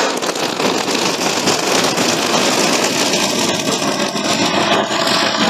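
A double-function Diwali firecracker (fountain plus ground spinner) burning, with a dense, steady hissing crackle of spraying sparks.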